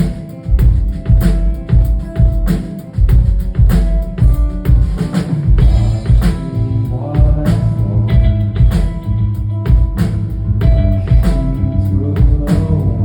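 Live rock band playing loud: a drum kit beating a steady rhythm over heavy bass, with sustained guitar lines.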